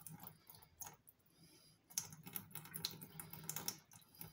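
Water being poured out of a small glass jar into a stainless steel sink, heard as faint, irregular clicks and light splashes.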